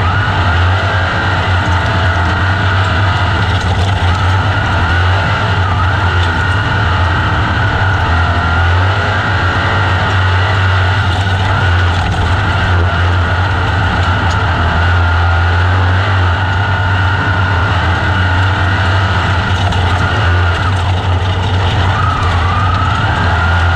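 Open-wheel dirt-track race car's engine running hard at high revs under racing, heard from on the car itself. Its pitch wavers up and down, dipping and climbing again near the end, over a heavy low rumble.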